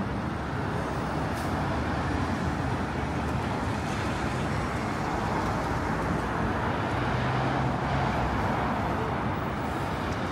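City street traffic: steady road noise with passing vehicle engines, growing a little louder about midway.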